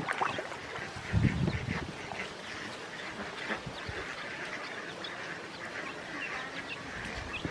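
Ducklings peeping, many short high calls overlapping, with a brief low thump about a second in.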